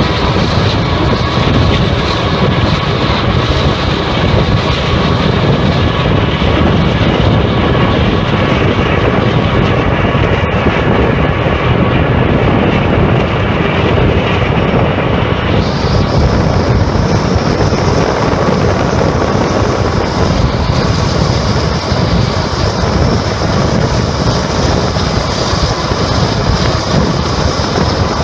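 Loud, steady rumble and rush of a moving pace vehicle running alongside a power move of EMD SD90/43MAC diesel locomotives, with wind on the microphone and faint steady hums. The high hiss gets brighter about halfway through.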